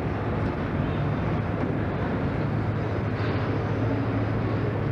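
Steady low drone of small engines running, over a wash of outdoor background noise.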